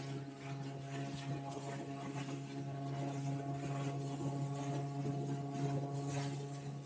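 Motorboat's outboard motor running at a steady pitch.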